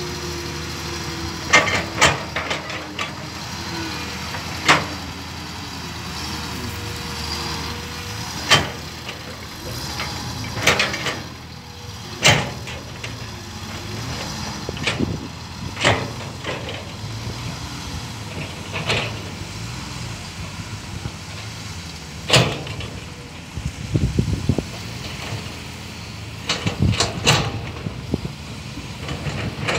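Loaded tipper truck with about an 8-ton load rating driving slowly over a rough harvested field, its diesel engine running steadily. Sharp knocks and bangs come every second or few and are louder than the engine, growing rougher and more frequent near the end.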